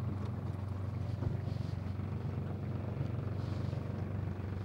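Boat's outboard motor running steadily at low trolling speed, a low even hum.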